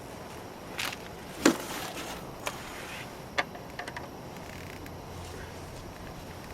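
Several separate sharp clicks and knocks of tools and parts being handled at the wheel's axle bolt, the loudest about a second and a half in, over a faint steady background.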